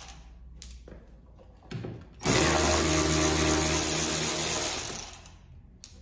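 Handheld power drill backing out the bolts of a pickup's inner fender liner. After a brief blip it runs steadily for about three seconds, starting about two seconds in and winding down near the end.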